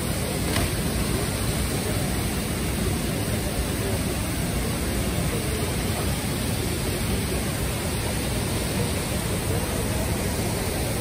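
Rushing river water over rocky rapids and a small waterfall: a steady, even roar of water.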